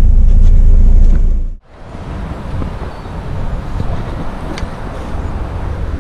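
A loud low rumble that cuts off abruptly about a second and a half in, followed by gusty wind blowing across the microphone.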